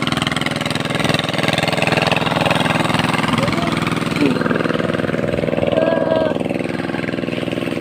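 A small engine running steadily at a constant speed, with faint voices in the background.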